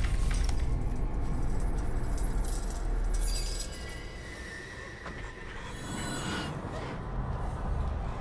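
Dark horror-film soundtrack: a loud low rumble that eases off after about three and a half seconds, then a held high tone and a burst of metallic scraping and screeching near the end, with a music score underneath.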